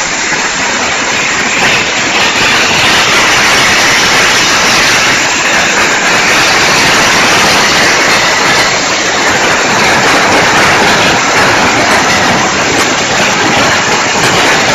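A string of firecrackers going off in a loud, continuous rapid crackle.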